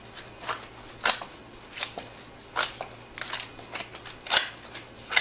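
Soft, oily bread dough, freshly mixed and still shaggy, kneaded by a gloved hand on a wooden board: a short squishy, sticky sound with each push and fold, about seven or eight strokes, roughly one every three quarters of a second.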